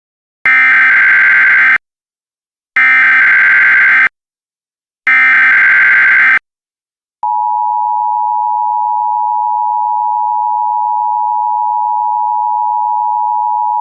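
Emergency Alert System SAME header: three harsh, buzzing digital data bursts, each about a second and a half long, with short gaps between them. About seven seconds in, the steady two-tone EAS attention signal starts and holds.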